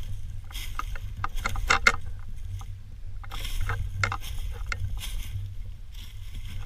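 Footsteps crunching through dry fallen leaves: irregular crackling crunches in uneven clusters, over a steady low rumble.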